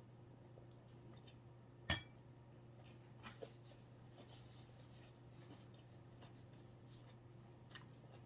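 Faint clicks and clinks of eating utensils and tableware during a meal, with one sharp click about two seconds in, over a steady low hum.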